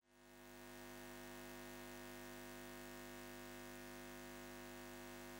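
Faint, steady hum made of several held tones, fading in at the start.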